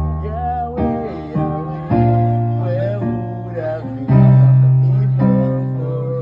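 Music: strummed guitar over held bass notes that change about every second or two, with a wavering melody line above.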